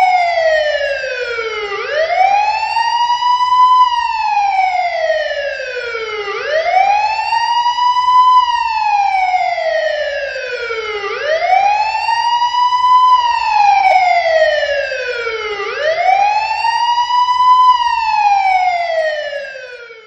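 Indian police siren sounding a slow wail, loud. Its pitch climbs over about two seconds, then slides back down over about two and a half, repeating four times before it cuts off.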